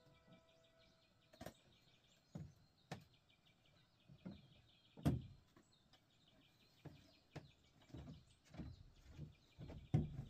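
Scattered dull thuds and knocks, a few at first and then coming about twice a second near the end, over a high repeating chirping of small birds in the background.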